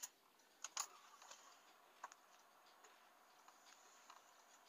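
Near silence with a few light clicks: two close together just before a second in and another about two seconds in.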